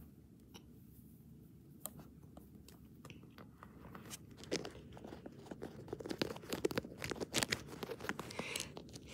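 Hard plastic animal figurines clicking and scraping against each other and rubbing on carpet in quick, irregular taps. The taps grow busier and louder from about four seconds in, as the figures are shaken together in a mock feeding.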